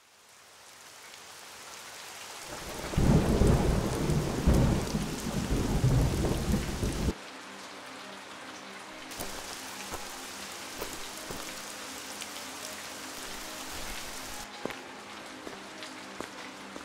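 Rain fading in, with a loud low thunder rumble from about two and a half seconds in that cuts off abruptly at about seven seconds. The rain then carries on with scattered drips and faint steady low tones beneath it.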